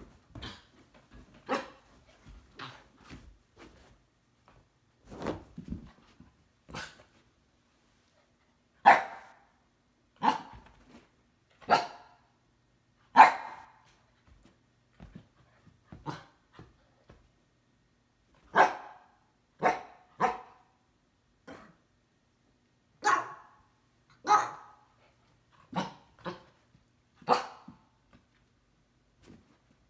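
Husky barking in short single barks, one to two seconds apart in clusters, with quieter, softer sounds in the first few seconds.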